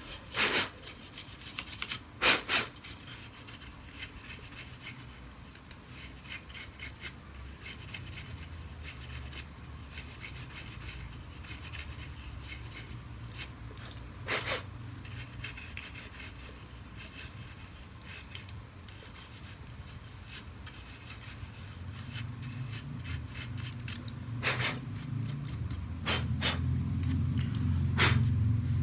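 A brush scrubbing dust and dirt out of an opened laptop: a steady rubbing that grows louder near the end, with a few sharp clicks.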